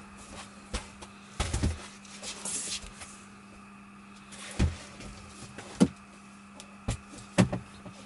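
Hollow gaffer-taped cardboard box being handled and shifted: irregular knocks and thumps with a brief scrape, the sharpest knock about six seconds in, over a faint steady hum.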